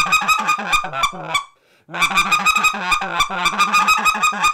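Hand-held goose call blown in fast runs of short clucks, each note a quick honk, several a second, with a brief pause about a second and a half in.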